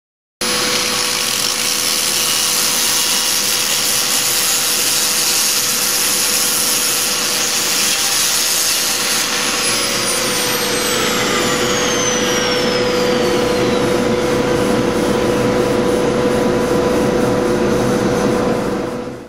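Angle grinder with a small dry diamond core bit running and grinding a hole through a thin porcelain tile slab, a steady motor whine over a gritty hiss. A higher whine falls in pitch about halfway through, and the sound stops suddenly near the end.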